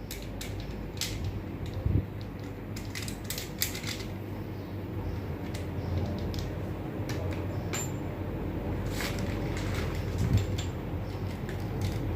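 Scattered metallic clicks, clinks and knocks of tools and parts being handled during an excavator swing motor overhaul, over a steady low hum.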